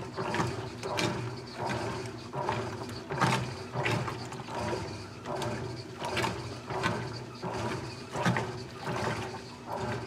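GE top-load washing machine agitating a load in water: the agitator swishes back and forth, each stroke a surge of sloshing water about every three-quarters of a second, over the motor's steady hum.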